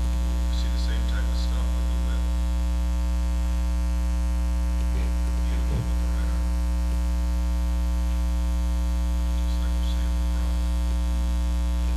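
Steady electrical mains hum: a constant low buzz with a stack of overtones.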